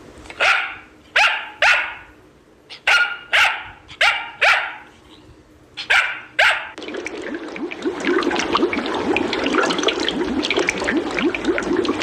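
A small terrier barking, about nine sharp barks singly and in pairs over the first six and a half seconds. Then steady bubbling aquarium water, a dense stream of small rising blips.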